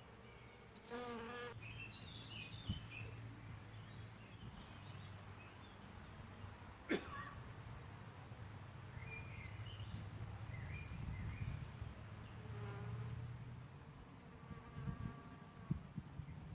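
A bee buzzing in flight: a low, steady hum that grows louder and softer as it moves.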